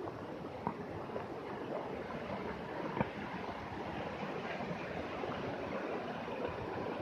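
Steady rushing of a mountain stream, with a few light knocks over it, the sharpest about three seconds in.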